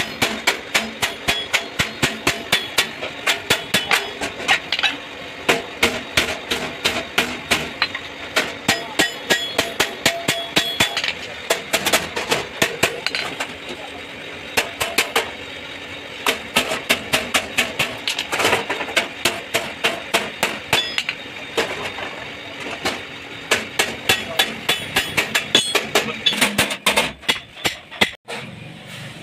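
Hammer striking sheet metal in quick runs of about three blows a second, each blow ringing briefly, with short pauses between runs.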